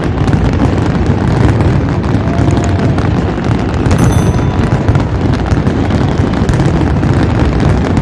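Fireworks going off in a dense, loud barrage of crackles and booms, which cuts off abruptly near the end.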